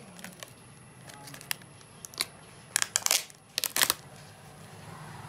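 Thin clear plastic protective film crinkling as it is peeled off a welding helmet's viewing lens and handled. Scattered sharp crackles, loudest in a cluster about three to four seconds in.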